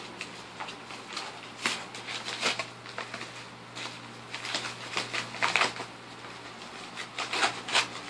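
Kraft padded mailer envelope being torn and peeled open by hand: irregular paper crinkling and ripping with sharp crackles, busiest in the second half.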